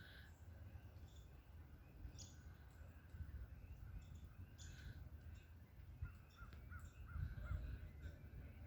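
Faint harsh bird calls, repeated about every two seconds, then a quick run of four short chirps near the end, over a low rumble.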